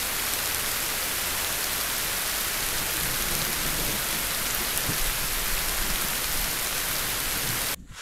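Rain falling steadily, a dense, even hiss that cuts off abruptly near the end.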